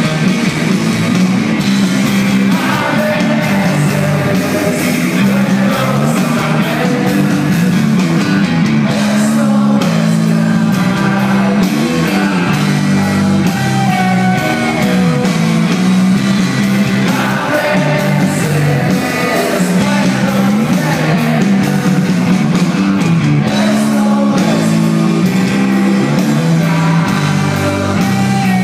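Rock band playing live and loud: electric guitars, bass and drums with a steady beat, and a lead vocal sung over them.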